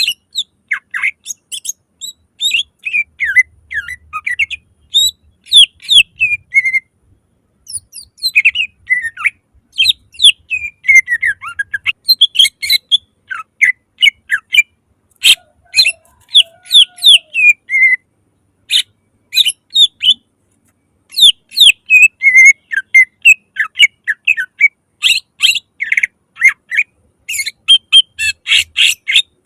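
Green leafbird (cucak ijo) singing a loud, fast stream of sharp chirps, whistles and quick falling trills, with two short pauses.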